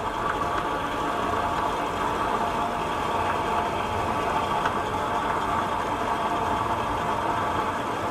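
Clay mill running steadily, its motor-driven paddle churning clay mixed with water into a soft mass.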